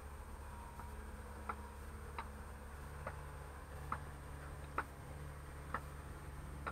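Sharp knocks of a long-handled tool on concrete paving stones, about one a second, over a faint steady low hum of machinery.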